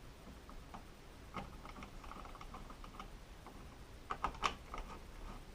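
Light, irregular clicks and ticks of a screwdriver working the screws of a wall switch plate, loosening them a little so a slide-switch cover can slip over. A quick cluster of sharper clicks comes about four seconds in.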